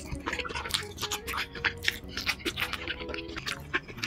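Close-miked slurping and wet chewing of a big mouthful of jjajangmyeon (black bean noodles), a dense run of small wet smacks and clicks. Soft background music plays underneath.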